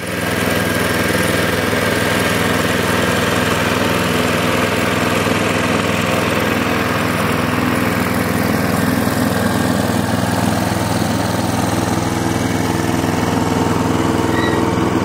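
Small engine of a ride-on miniature-railway locomotive running steadily as it pulls a train of flatcars, an even mechanical hum that holds the same level throughout.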